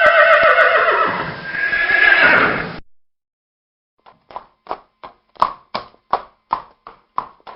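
Horse whinnying loudly for about three seconds, the call sliding down and then rising again. After a short pause, hooves clip-clop in a steady rhythm, about three beats a second.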